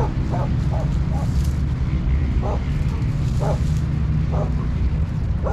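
A dog barking in short single barks, a second or so apart, over a steady low rumble.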